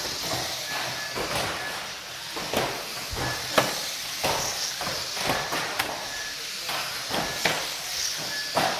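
Small electric radio-controlled cars racing on a carpet track: a steady whirr of motors and tyres, broken by frequent sharp knocks and clacks as cars hit each other and the track's edge boards. Short high beeps sound now and then.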